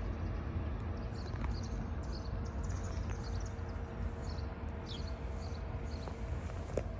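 Outdoor ambience: small birds chirping now and then over a steady low rumble and a faint steady hum.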